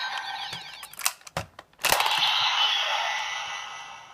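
Kamen Rider Gaim Genesis Core toy belt playing its electronic sound effects through its small speaker, with sharp plastic clicks from the Lock Seed mechanism. About two seconds in, a loud noisy effect starts and fades away.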